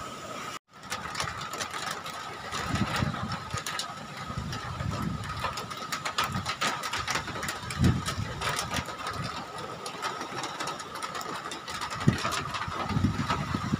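Typhoon-force wind gusting against a phone microphone: low rumbling buffets that swell and fade every second or two, with crackling and a thin steady whine.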